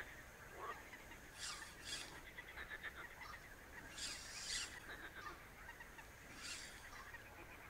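Faint animal calls: short high calls every one to two seconds, mostly in quick pairs, with a soft rattling trill about three seconds in.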